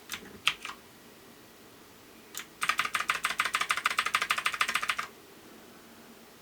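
Mechanical keyboard keys being typed on: a few separate key presses, then a quick burst of fast typing, about ten strokes a second, lasting about two and a half seconds.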